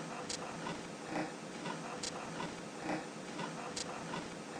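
A treadmill running under a walker, with footfalls and belt ticks in a steady rhythm, a little more than one a second. Faint clicks from a laptop keyboard being typed on fall between them.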